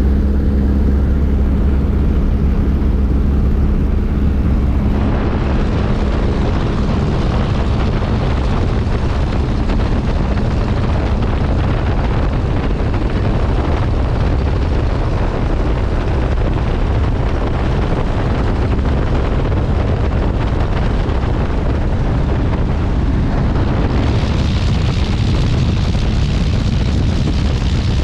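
Miles Magister's de Havilland Gipsy Major engine and propeller running at high power during its take-off, a steady noisy rush that grows fuller about five seconds in and brighter near the end.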